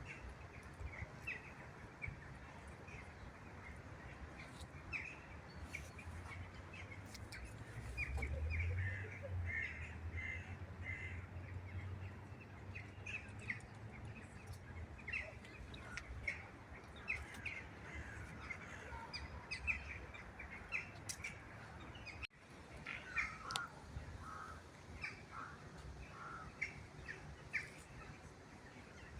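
A flock of birds calling, many short chirps and caws overlapping throughout, over a low steady rumble that grows louder about eight seconds in.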